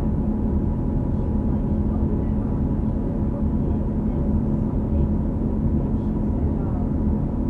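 New Flyer XD40 transit bus running steadily, its diesel drivetrain humming with thin, steady whining tones from the Allison B3400xFE transmission. This is the odd transmission bearing noise that some buses of this series share.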